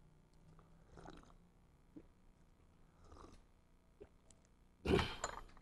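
Faint sounds of a stainless kettle and cup as a drink is poured: a few small clicks and a short soft pour, then one louder brief sound near the end.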